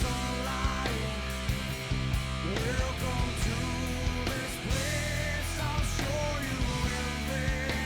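Rock music with a steady beat and a singing voice.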